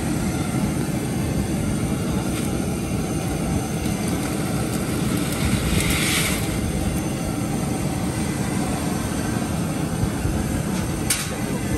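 Propane burner under a crawfish boiler running with a steady roar. About six seconds in, a short rushing hiss comes as a basket of live crawfish is tipped into the boiling water.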